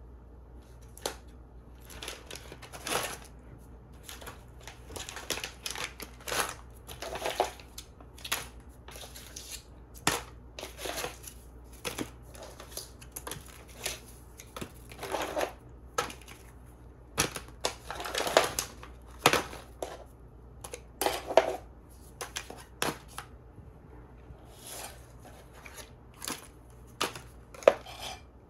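A cat rummaging through a nylon duffel bag full of packets: irregular rustling and crinkling of plastic and foil packaging, broken by sharp clicks as items shift and knock together.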